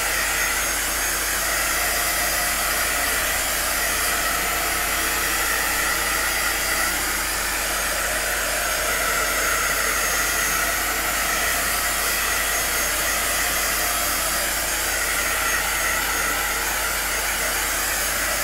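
Handheld heat gun running steadily, a blower rush with a faint hum that wavers slightly as it is swept over wet acrylic pour paint to raise cells.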